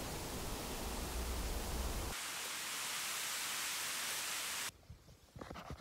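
Wind blowing through dry dune grass, a steady rushing hiss with a low rumble of wind buffeting the microphone for the first couple of seconds. It then goes on as a thinner hiss, and near the end it cuts to a much quieter, crackly rustling of dry reeds.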